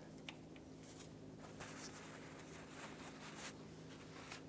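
Near silence: a faint steady hum, with a few soft rustles and light handling noises from a gloved hand and shop rag at the cooler line fitting.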